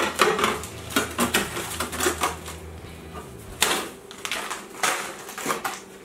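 Frozen food packages being knocked and set down on freezer shelves and plastic bins: a string of irregular clunks, clacks and rustles. A low hum underneath stops about three and a half seconds in.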